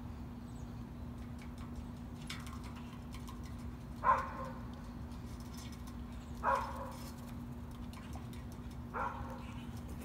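Crow cawing three times, about two and a half seconds apart, the first the loudest, over a steady low hum.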